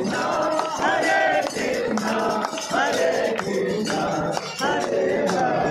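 Group devotional singing with hand clapping and dholak drum and other percussion, as a procession walks round.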